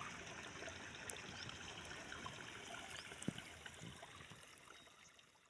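Faint trickling of a small stream, with a few small clicks, fading out near the end.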